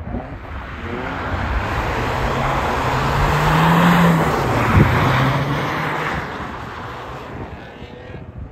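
Audi A3 hatchback sliding sideways through a snowy bend, its engine working hard and tyres spinning and throwing snow. The sound builds as it comes close and passes about four seconds in, then fades as it drives away. There is one sharp knock just after it passes.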